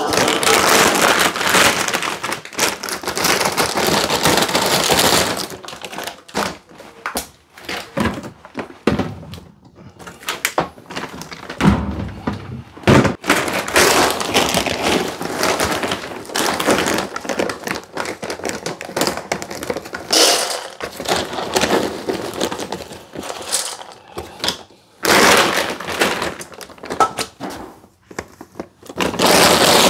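A new plastic bag of dry dog food being torn open and handled, crinkling and crackling, while kibble is poured into a bowl. There are a few knocks and two low thumps about twelve seconds in.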